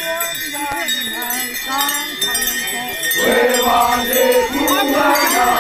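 A crowd of Wancho dancers chanting together, several voices overlapping, over a steady high ringing tone. The chanting swells louder about three seconds in.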